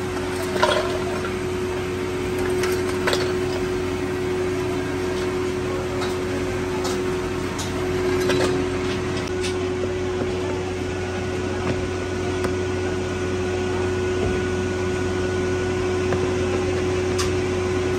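Steady mechanical hum of foundry machinery with a constant pitched tone, broken by a few light clinks and knocks of metal scattered through it.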